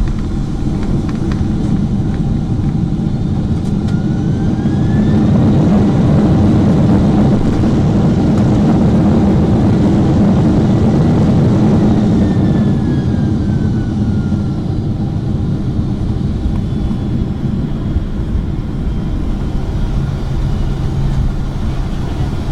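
Boeing 767-400ER cabin noise: a steady low roar of engines and airflow that swells about five seconds in, with a faint rising whine, and eases again after about twelve seconds, with a falling whine.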